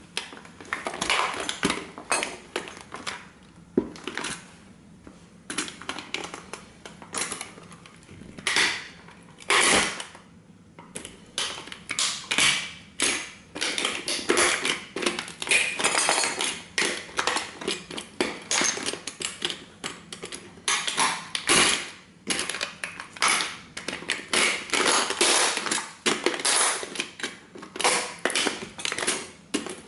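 Vintage tin toy car crumpling under the slow weight of a heavy-soled combat boot: thin sheet metal creaking and crackling with dense, irregular metallic clicks and scrapes, and a few louder cracks.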